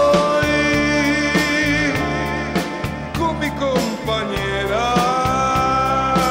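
Live rock band playing an instrumental passage: drums keep a regular beat under sustained keyboard chords and a lead melody line whose notes bend and glide.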